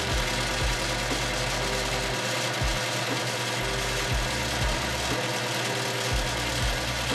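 South Bend metal lathe running with its power feed engaged, a steady mechanical whir from the spindle drive and feed gearing.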